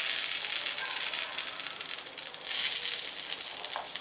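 Hot oil tempering of mustard seeds and urad dal sizzling and crackling as it meets the wet chutney: a dense hiss full of fine crackles, swelling at the start and again about two and a half seconds in.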